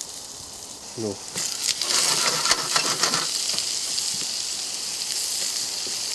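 Meat sizzling on a barbecue grill, the sizzle jumping up loudly about a second and a half in, with a run of clicks and scrapes over the next couple of seconds.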